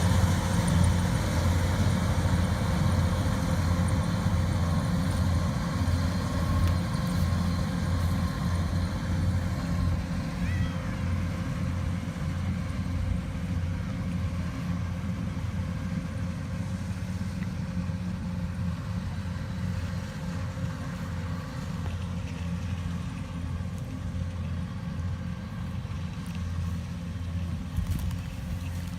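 Engine of a rice harvesting machine running steadily, slowly getting quieter.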